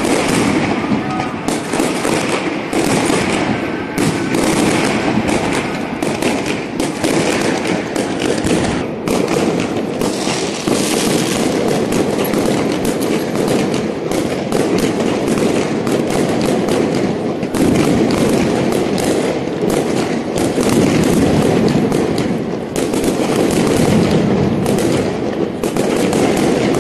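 Fireworks display: a continuous, dense crackle of aerial shells and firecrackers bursting, many sharp bangs and pops overlapping without a break.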